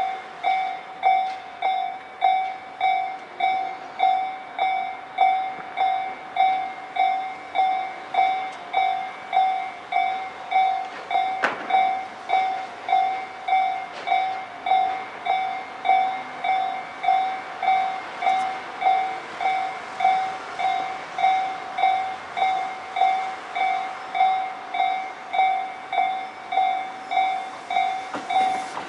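Railway level crossing warning bell ringing steadily, about three strikes every two seconds. A rising rush of noise from an approaching train builds in the second half.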